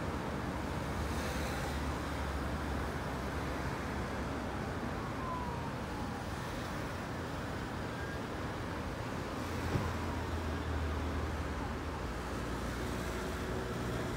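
Road traffic queued at a junction, a steady low rumble of idling and slowly moving engines. A faint, distant siren wails in the middle, and there is a single brief knock about ten seconds in.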